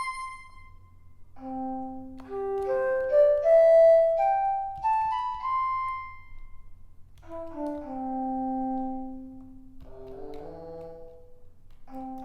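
EASYPLAY 1s keyboard playing a melody of held notes in one of its built-in sampled instrument voices, in two phrases with a short gap between them about seven seconds in.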